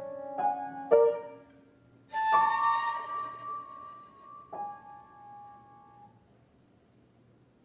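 Improvised solo violin playing a few held notes, the loudest a high note slid slightly upward about two seconds in. The playing dies away about six seconds in.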